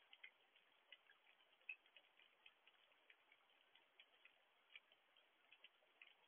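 Faint rain: scattered raindrops ticking irregularly, several taps a second, over a soft hiss.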